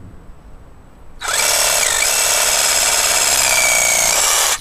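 Black & Decker reciprocating saw running and cutting through a tree branch. It starts about a second in, runs loud and steady for about three seconds, then stops abruptly.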